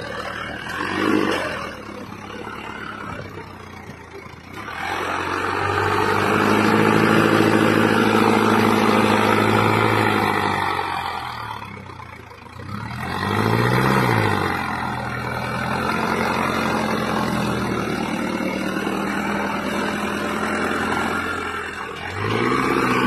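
A tractor's diesel engine revving under heavy load while the tractor is stuck in mud and tries to pull free. It is quieter at first, then opens up loud for several seconds. It drops back, surges again with a pitch that rises and falls, and then settles into a steady hard pull.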